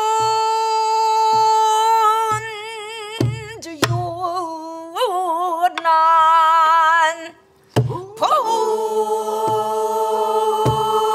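A woman singing pansori in a full, open voice, holding long notes with a wide, wavering vibrato. A buk barrel drum marks the rhythm with a few low strokes. About seven seconds in she breaks off briefly for breath, then starts a new held note.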